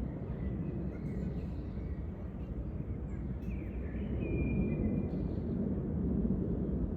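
Outdoor ambience: a steady low rumble of wind or environmental noise, with a few faint chirps, likely distant birds, about three to four seconds in.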